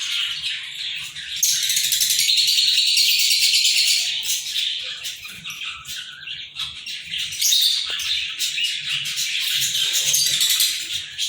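A pair of Indian ringneck parakeets calling almost continuously: rapid, high-pitched, buzzy chattering with brief pauses.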